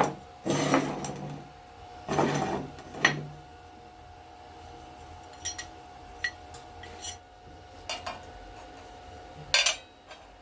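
Steel parts being handled and worked: a sharp metal clank, two short clattering scrapes and a knock in the first few seconds, then lighter ticks and two more clanks, over a faint steady hum.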